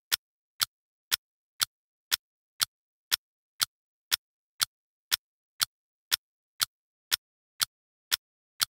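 Clock-tick sound effect of a countdown timer: short, sharp ticks evenly spaced, two a second.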